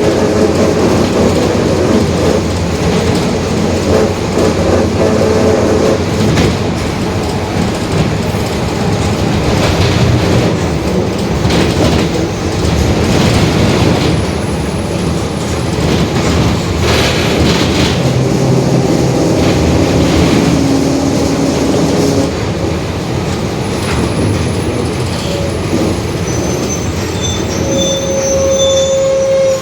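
Mercedes-Benz OF-1721 Bluetec 5 city bus under way: diesel engine running with the differential growling, a whining tone that comes and goes with the drive, and occasional knocks and rattles.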